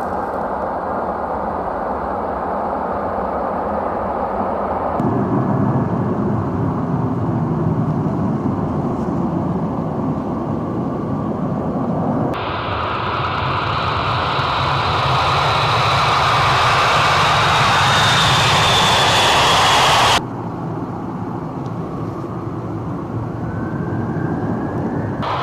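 Military jet aircraft engines running, in several clips cut together, so the roar changes abruptly about five, twelve and twenty seconds in. In the third clip a high engine whine sits over the roar, falling slightly in pitch.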